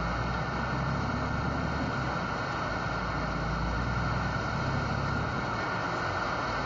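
Steady hiss of radio static from a CB radio, over the low steady rumble of the truck's running engine.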